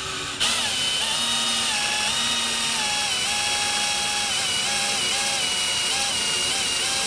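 Brushless cordless drill running steadily with a motor whine as it drills a small, shallow hole into a rubber shaft seal. It starts about half a second in, and its pitch dips slightly now and then as the bit bites.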